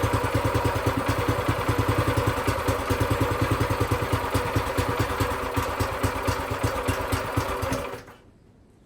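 Brand-new Predator 212cc single-cylinder four-stroke engine running at a low idle with steady, evenly spaced firing pulses, then stopping abruptly about eight seconds in. The idle is set too low.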